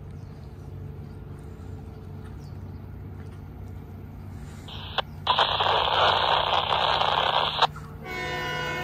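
Scanner radio picking up railroad radio traffic: about five seconds in, a burst of static hiss lasting about three seconds, with a short break near its start, then the start of a transmission near the end. A steady low hum runs underneath.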